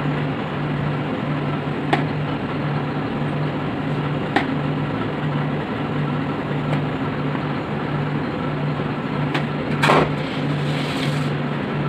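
Steady mechanical hum with a low throb pulsing about twice a second, and a few faint clicks and a short scrape as a knife scores a sheet of set dark chocolate into squares.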